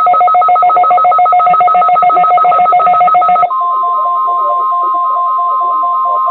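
Rapid two-pitch alarm beeping from a weather alert receiver. About three and a half seconds in, the NOAA Weather Radio warning alarm tone, a single steady tone, comes on and holds, with the beeping continuing more quietly beneath it.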